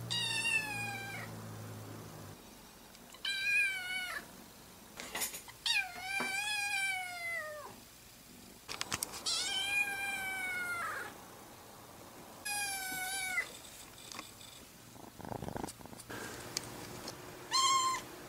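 Orange tabby kitten meowing repeatedly: a series of high meows, several of them drawn out and rising then falling in pitch, with short pauses between.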